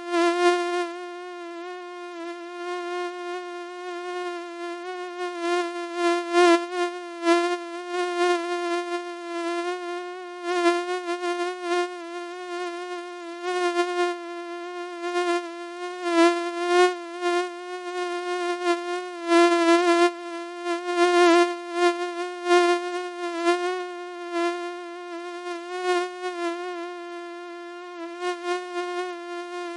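Mosquito wingbeat whine: one steady, thin buzzing tone with a slight waver in pitch, repeatedly swelling louder and fading back.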